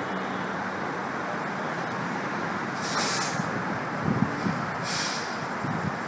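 A fire truck's diesel engine idling, with two short bursts of air-brake hiss about three and five seconds in.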